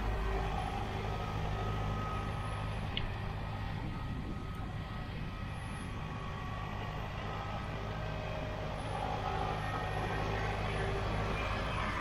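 Tractor diesel engine running steadily under load as it pulls a Grimme SE 75-55 single-row potato harvester through the field, with the harvester running behind it. The sound grows fainter around the middle as the machine draws farther off, and louder again near the end as it comes closer.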